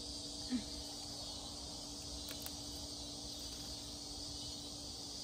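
Steady high-pitched chorus of insects trilling, with a faint steady low hum beneath it.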